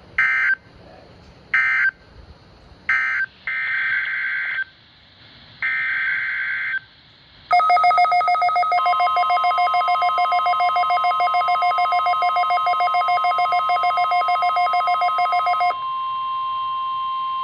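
Five short bursts of screechy EAS digital data tones. Then, about seven and a half seconds in, a loud pulsing alarm made of several tones, joined a second later by the steady 1050 Hz NOAA Weather Radio warning alarm tone sounded as a weekly test. The pulsing alarm stops near the end, and the single steady tone carries on.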